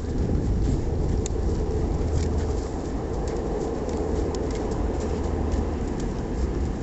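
A train passing, a steady low rumble with faint clicking above it.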